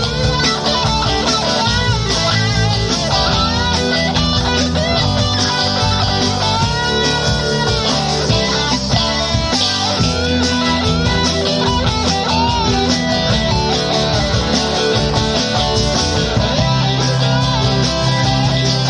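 Rock song instrumental passage: an electric guitar lead with bent notes over bass guitar and a drum beat.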